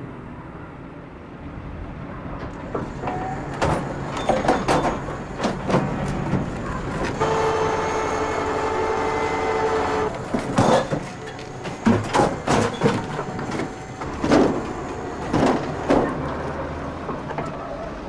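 A tow truck at work: its engine runs under many sharp metal clanks and bangs, with a steady pitched drone for about three seconds in the middle.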